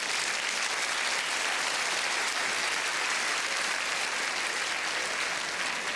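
Large theatre audience applauding, a dense, steady clapping.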